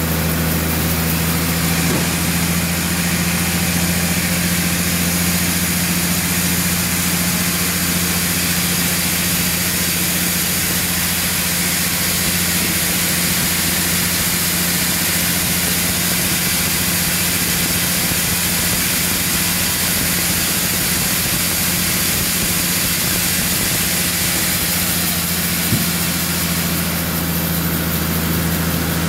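Large sawmill band saw running steadily, its blade ripping lengthwise through a big dried tamarind log: a constant low machine hum under the hiss of the cut. The hiss eases slightly near the end.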